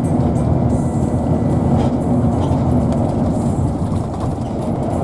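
Steady low rumble of a vehicle travelling on a highway: road and engine noise, with no change in level.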